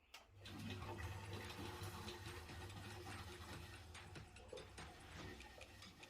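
Boiler gurgling faintly with irregular ticks and crackles over a steady low hum. It runs with the overheat light on, a clue to the boiler's fault.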